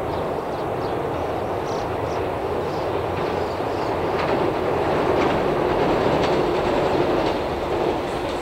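Shinano Railway 115-series electric train approaching over a steel truss bridge: a steady running rumble with faint wheel clacking, growing a little louder midway as it comes nearer.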